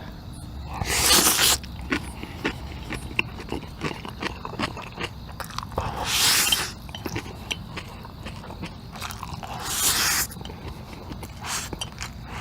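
Someone eating black bean noodles (jajangmyeon) with three long noisy slurps and a shorter one near the end. Wet chewing and lip-smacking clicks run between them.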